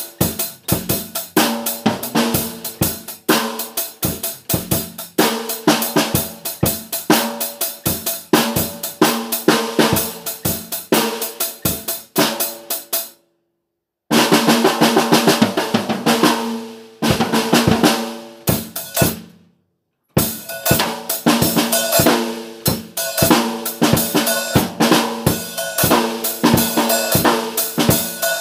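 Drum-heavy background music with a fast, steady beat over held notes; it cuts out completely twice, for under a second each time, about halfway through and again a few seconds later.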